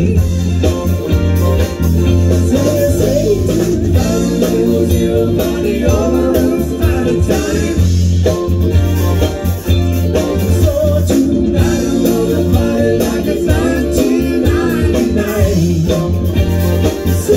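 A live band playing a song: electric guitars and a bass line, with sung vocals over them.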